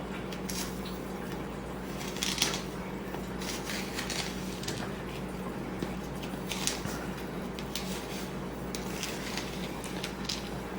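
Light scattered rustling and clicks from a cut-open ZeroWater filter cartridge and its granules being handled, over a steady low hum.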